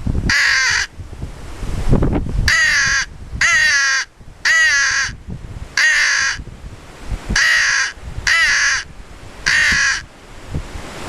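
Lohman crow call, a reed call blown by mouth, imitating crow caws: about eight separate loud caws with short pauses between them, several bending downward in pitch. Low wind rumble fills the gaps.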